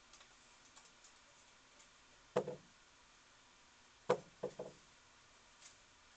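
A raccoon climbing a wooden deck post, its body knocking against the wood: a double knock about two and a half seconds in, then three quick knocks a little past four seconds, with faint ticks between.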